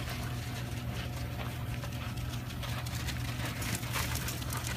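A steady low mechanical hum runs throughout at an even level, like an engine or generator running. Over it come scattered light scuffs of sheep hooves and a dog's paws on gravel as the dog chases the sheep.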